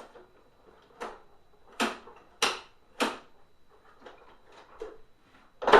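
Hard plastic parts of a Hoover SteamVac carpet cleaner knocking and clacking as it is pulled apart: about six sharp knocks, roughly a second apart, the loudest near the end.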